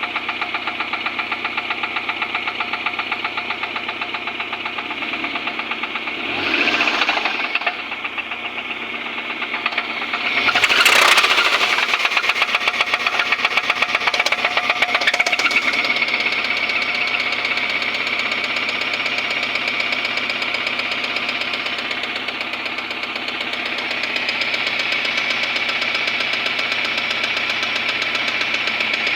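Suzuki Grand Vitara engine running with a harsh, rapid knock, revved briefly twice, about seven and eleven seconds in, and again lightly near fifteen seconds.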